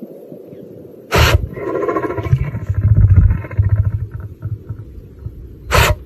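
Lion sneezing: a short sharp blast, followed by a long low pulsing rumble from the lion's throat. A second sneeze comes near the end.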